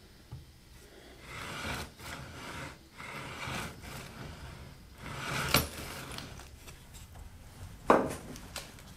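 Plywood Z-axis carriage of a DIY CNC router being slid back and forth by hand on aluminum-angle rails over V-groove bearings: several short rolling, rubbing strokes, with a sharp knock about halfway through and another near the end.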